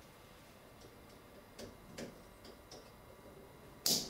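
A steel circlip being worked onto the end of a hydraulic monoblock valve's detent spool with circlip pliers: a few small metallic clicks, then a sharp snap near the end as the circlip seats in its groove.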